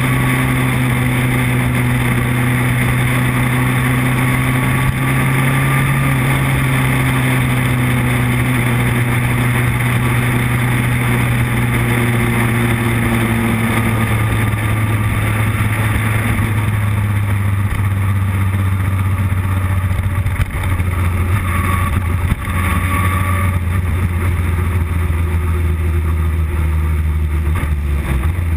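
Motorcycle engine running at a steady cruise, heard over constant wind rush; about halfway through the engine note drops lower as the bike slows.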